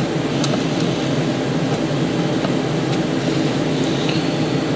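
A steady mechanical drone of running machinery, with a few faint light clicks.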